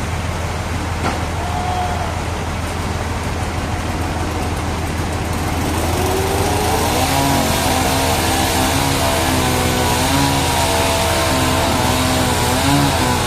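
A motor or engine running steadily, rising in pitch about halfway through and then holding the higher speed, louder.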